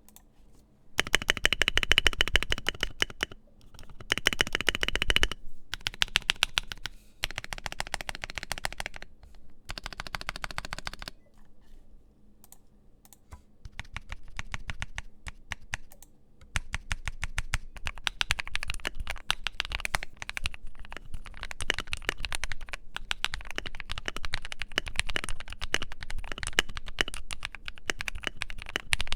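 Modded Keychron Q3 mechanical keyboard with filmed and lubed Akko Matcha Green switches being typed on fast. The keystrokes come in several short bursts with brief pauses, go lighter for a few seconds, then run on as steady continuous typing from about halfway in.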